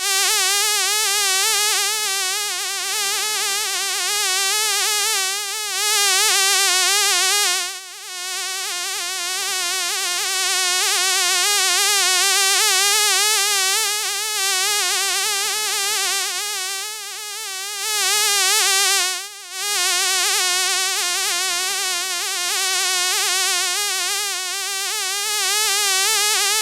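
Mosquito whine: the high, steady buzz of its wingbeat, the pitch wavering slightly, growing louder and softer, with two brief drops about eight and nineteen seconds in.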